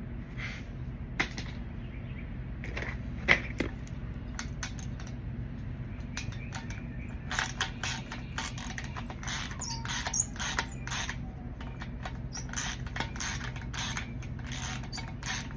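Hand ratchet wrench clicking as bolts are tightened back up: a few separate clicks at first, then repeated runs of fast clicking from about halfway through.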